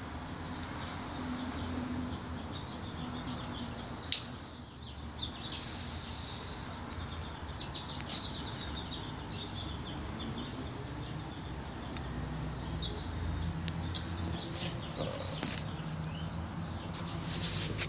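Outdoor ambience with birds chirping faintly, a sharp click about four seconds in, and a run of clicks and handling knocks near the end.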